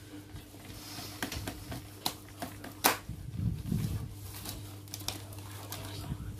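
Crinkling and clicking of a plastic packet of bondon bait being handled and emptied into the mix, with one sharper click about three seconds in.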